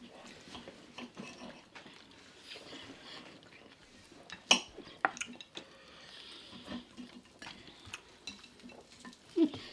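Cutlery and dishes clinking and scraping as a meal is eaten, with scattered small knocks and one sharp clink about four and a half seconds in.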